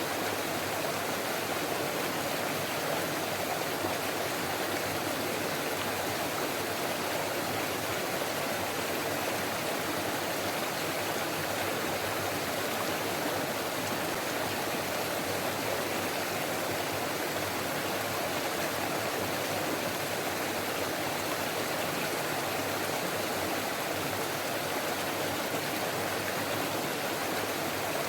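Forest stream flowing over rocks: a steady, even rush of running water.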